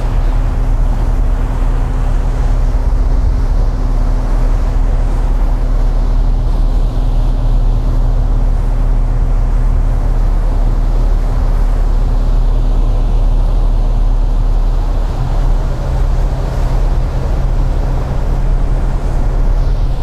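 Ferry's engine running with a steady, loud low drone, heard from aboard the moving ship. About fifteen seconds in, one of its tones drops out and the hum shifts slightly in pitch.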